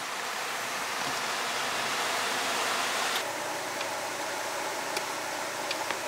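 Steady rushing hiss of the River Usk in flood. About three seconds in it cuts to a similar steady hiss with a few faint ticks.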